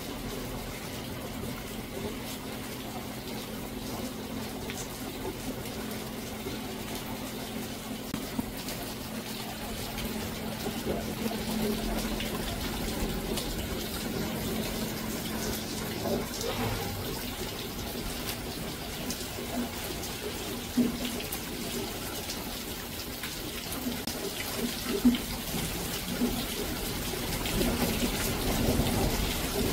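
Rain falling steadily, with a constant noise of running, splashing water and a few sharper drop impacts standing out. The sound grows louder near the end.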